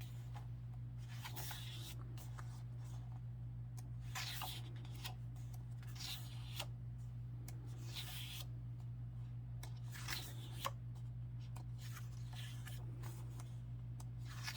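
Faint paper rustling as album photo book pages are handled and turned, with a soft rustle every second or two over a steady low hum.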